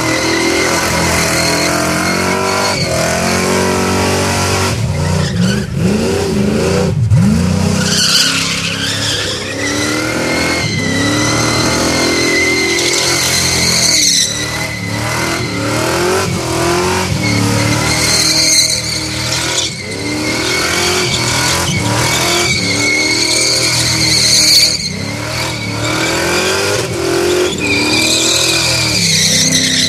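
Holden VK Commodore V8 held at high revs in a burnout, the revs rising and falling repeatedly, with the rear tyres squealing continuously as they spin.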